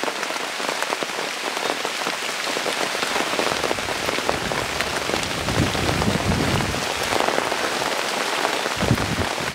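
Quite heavy rain falling: a steady hiss of dense drops.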